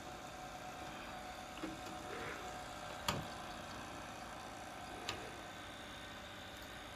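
Open-reel video tape recorder running, a steady mechanical hum and hiss, with three light clicks, the sharpest about three seconds in.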